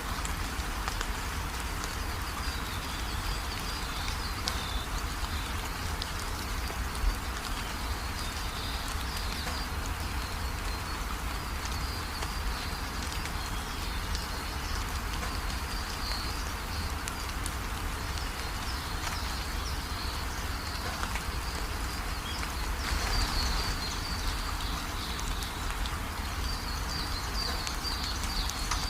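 Steady rain falling, an even patter with a low rumble beneath it. A high, wavering chirring call comes and goes behind it.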